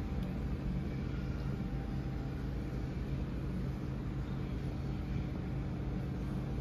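Steady engine and road hum inside a moving car, a constant low drone with no changes in pitch.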